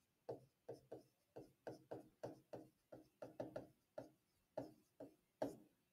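Faint stylus strokes on a tablet while writing by hand: a quick run of short taps and scratches, about three a second.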